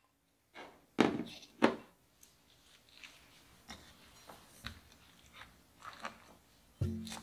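Kitchen knife cutting into a red cabbage on a wooden cutting board: two loud knocks about a second in, then a run of small crisp crunches. Soft background music comes in near the end.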